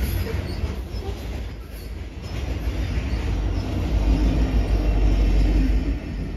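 Coal cars of a BNSF freight train rolling past with a steady rumble and brief high wheel squeals. About four seconds in, the diesel locomotive at the rear of the train passes, and its low engine rumble is the loudest part. The rumble drops off near the end as the train clears.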